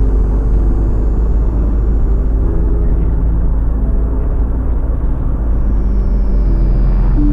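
Steady low rumble of a car driving along a highway, road and engine noise picked up by the dashcam.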